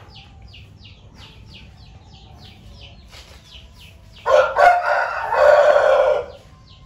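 A rooster crows once, loudly, about four seconds in, the call lasting about two seconds. Under it runs a steady series of short high-pitched pulses, about three a second.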